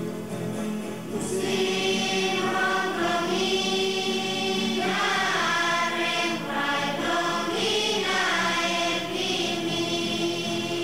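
Background music of a choir singing, the voices coming in louder about a second in.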